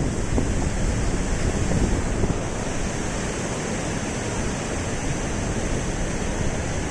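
Floodwater in a swollen river rushing past in a steady roar of water, with wind rumbling on the microphone.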